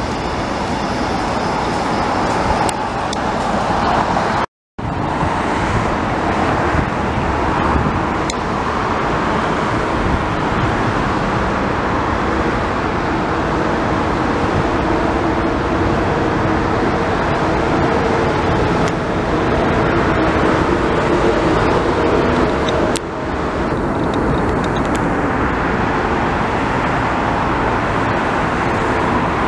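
Steady city road-traffic noise. It follows a short stretch of an S-Bahn electric train running past, which breaks off abruptly about four seconds in.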